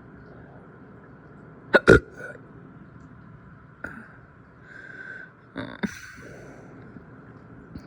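A person hiccuping repeatedly: short, sudden hiccups, the loudest a quick pair about two seconds in, then fainter ones about every two seconds.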